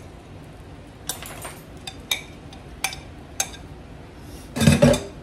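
Metal spoon clinking and scraping on a ceramic plate as cubes of raw potato are spooned into an air fryer basket, a few separate clinks, then a heavier knock near the end.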